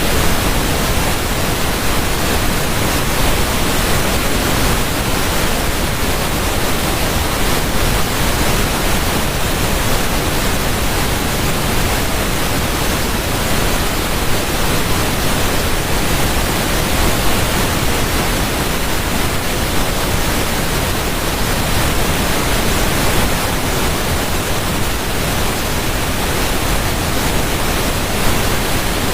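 Steady rushing water, an even full wash of sound with no breaks or changes.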